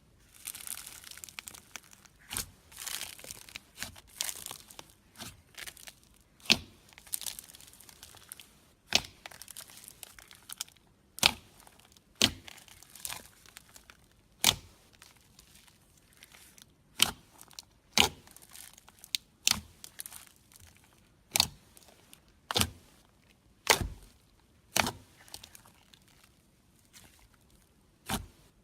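Slime being handled: crackly tearing and stretching noise, broken by sharp pops at irregular intervals, about twenty in all.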